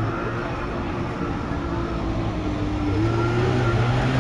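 Car engine running as a classic car drives slowly past, a steady low engine hum that rises a little and gets louder near the end.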